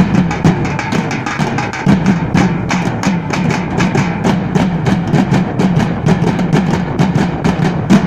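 A group of large steel-shelled drums beaten with sticks in a fast, steady ensemble rhythm, the strokes dense and even over a deep drum resonance.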